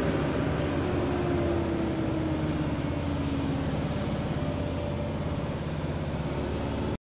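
Engine of a loaded diesel truck running steadily on the road, with a tone that falls slowly in pitch over a few seconds starting about a second in.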